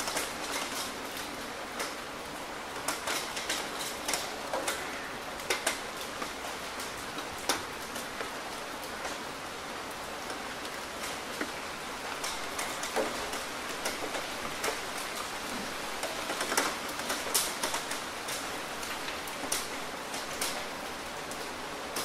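Steady rain falling: an even hiss, with irregular sharp taps of single drops striking close by, a little busier for a couple of seconds past the middle.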